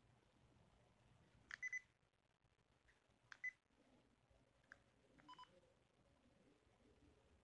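Olympus digital voice recorder giving short electronic button beeps as its buttons are pressed: several brief beeps spread over the seconds, the last ones lower in pitch, against near silence.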